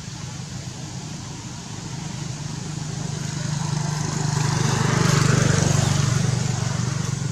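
Motor vehicle engine humming, growing louder to a peak about five seconds in and then fading as it passes by.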